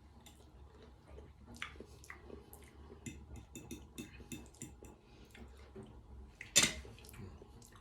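Light clicks and clinks of cutlery against dishes, scattered and irregular, with one sharper, louder clack about six and a half seconds in.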